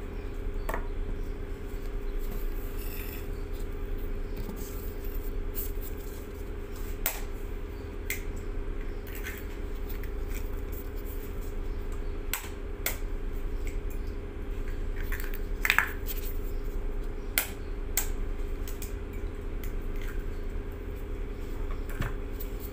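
Scattered sharp taps and clicks of eggs and a fork knocking on a ceramic bowl as eggs are cracked open, about a dozen over the stretch, with a steady low hum underneath.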